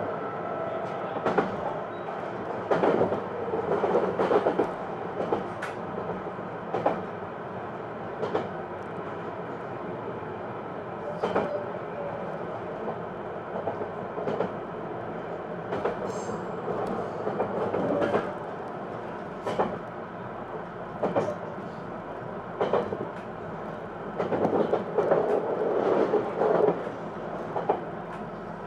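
Running sound inside a Hokuetsu Express HK100 electric railcar moving along the line: a steady rumble of wheels on rail, with clicks single or in pairs every second or two as the wheels cross rail joints.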